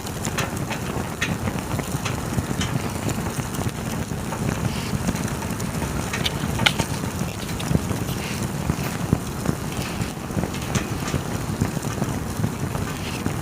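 Wood campfire crackling: irregular sharp pops and snaps over a steady low rush of burning, with one louder pop about seven seconds in.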